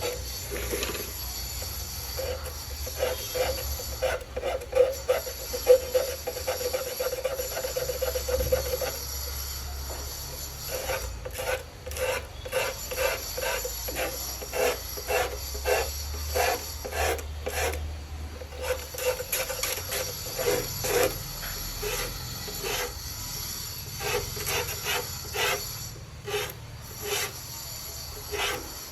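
Repeated rasping strokes of a hand tool scraping or filing on a hard surface, roughly two a second, over a low steady hum that fades out about two-thirds of the way through.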